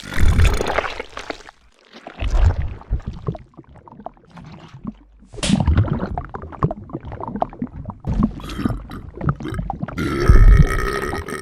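Sound-designed eating sounds of a huge slime bear: several loud wet bursts of gulping and slurping, then a long, deep belch near the end.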